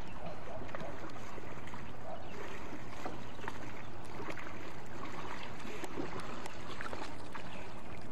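Water sloshing and splashing close by as snorkelers swim at the surface, over a steady even hiss.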